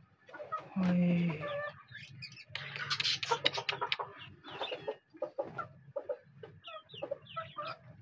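Caged budgerigars chattering with many short chirps and quick rising and falling calls, after a short low hum about a second in.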